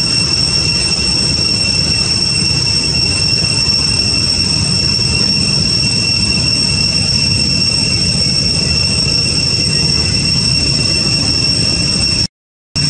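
Steady forest insect chorus: an even, high-pitched drone over a low rumble, cut by a half-second silent dropout near the end.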